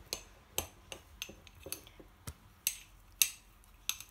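Spoon knocking and scraping against a small ceramic bowl while stirring a thick cocoa-and-honey paste: a string of sharp clinks, about two a second, the loudest about three seconds in.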